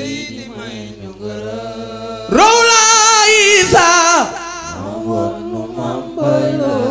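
Sung Wolof religious chant. The voice sings softly at first, then about two seconds in holds one loud, long note with a wavering vibrato for about two seconds before dropping back to softer singing, over a steady low hum.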